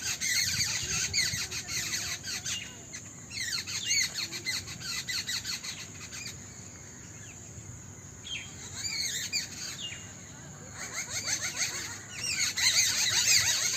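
Dawn chorus of many small birds chirping and twittering, with quick overlapping calls. It thins out for a few seconds in the middle, then builds again and is loudest near the end.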